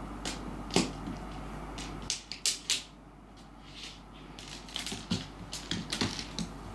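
A cat batting a hard dried persimmon seed across a wooden floor: scattered sharp little clicks and taps of the seed and paws, one about a second in, a quick burst around two seconds in and another run toward the end.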